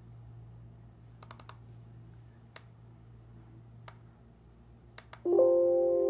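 A few light clicks of laptop keys, then, about five seconds in, a loud chime from the Lenovo Ideapad 310's speakers that fades out over about two seconds. This is the Windows volume-change ding, played as the volume is stepped down from full.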